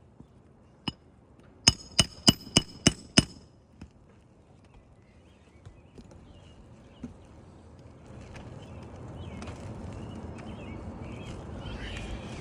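Hammer driving nails into a replacement 3-tab asphalt roof shingle: one blow, then six quick ringing blows about three a second. A rustling noise rises over the last few seconds.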